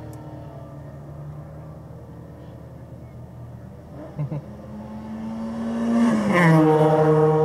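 2022 Camaro SS 1LE's 6.2-litre LT1 V8 idling at a standstill. Just after four seconds there are two short knocks, then a second engine note grows louder and drops sharply in pitch about six seconds in, the loudest part: another car's engine close by.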